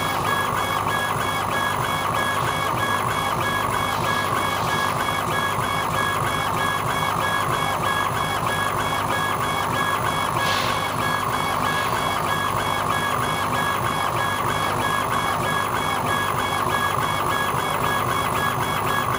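Laser engraving machine running: the head's stepper motors whir in a rapid, evenly repeating pattern as it sweeps back and forth over a steady hum.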